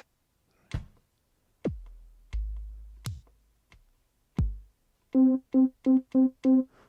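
E-mu MP7 Command Station playing sounds from its trigger buttons: a few electronic kick drums, each dropping in pitch into a long low boom, then one synth note struck five times in quick succession near the end.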